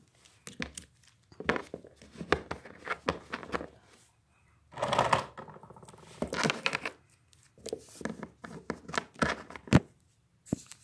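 Handling noise: irregular clicks, taps and rustling as a phone is moved about close to the microphone and small plastic toy figures are handled.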